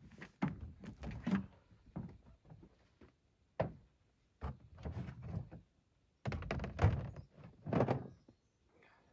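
A series of irregular thunks and knocks as gear is moved around in a pickup truck bed, the loudest a little past halfway.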